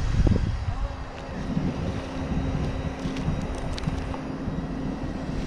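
An engine running steadily with an even hum, under a low rumble of wind on the microphone.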